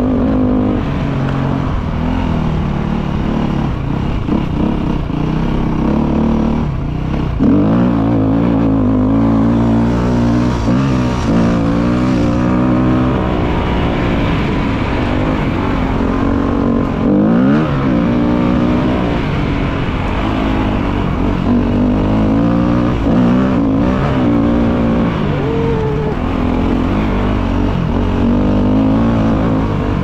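KTM motorcycle engine running while riding, its pitch rising and falling again and again with the throttle.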